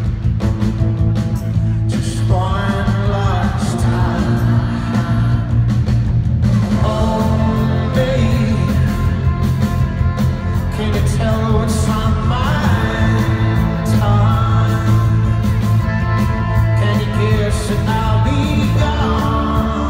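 Live rock band playing loudly, a male lead singer over electric guitars, keyboards, bass and drums, with heavy booming bass as heard from the crowd.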